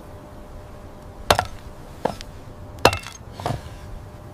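Hammers striking wooden stakes being driven into the ground: four heavy blows, roughly one every three-quarters of a second, starting about a second in, the third the loudest and the last fainter.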